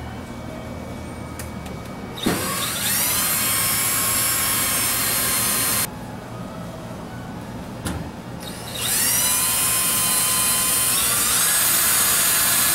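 Power drill running in two bursts, each spinning up to a steady high whine; the first lasts about three and a half seconds, the second about five.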